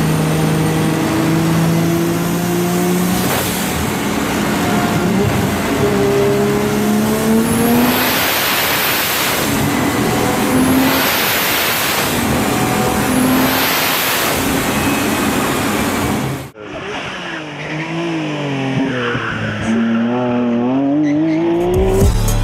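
Nissan Pulsar GTI-R's swapped RB26 straight-six revving hard on a chassis dyno, its pitch climbing through the gears and dropping back at each shift, with a hiss and whistle at the shifts about 8, 10 and 13 seconds in. About 16 seconds in the sound cuts to the car on a hill climb, its engine rising and falling as it accelerates and lifts for corners.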